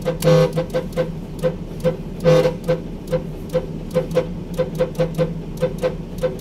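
Truck horn driven by a Mitsuba Pro 25-tone horn controller, playing one of its preset tone patterns during a sound check. It gives short blasts, a longer blast about two seconds in, and then quick short toots about four a second.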